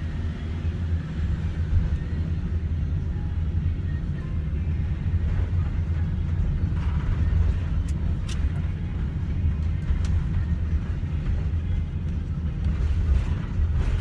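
Van driving along a street, heard inside the cabin: a steady low rumble of engine and road noise.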